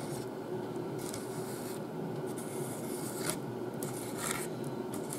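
Flat edge of an electric hot knife rubbing and scraping across a styrofoam block to roughen its surface: a quiet scratchy rubbing with a few brief, sharper strokes.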